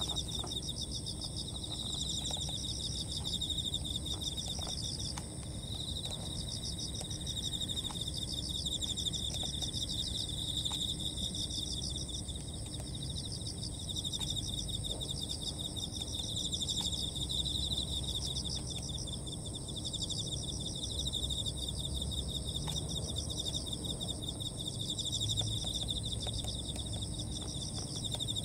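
Insects trilling continuously in several high-pitched layers, each a fast, even buzz, over a low background rumble.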